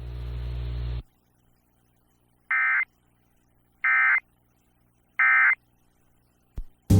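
Emergency Alert System end-of-message signal: three short, identical bursts of digital data tones, about 1.3 seconds apart, marking the end of the warning broadcast. Before them, about a second of radio hiss and hum that cuts off suddenly.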